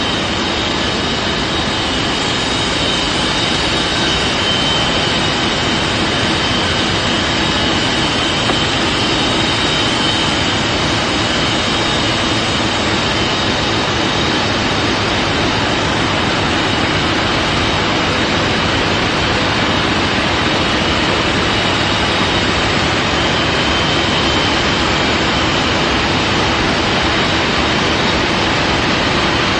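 Heidelberg Varimatrix CS-II die-cutting machine running: a steady, even rush of machine noise with a faint high whine above it.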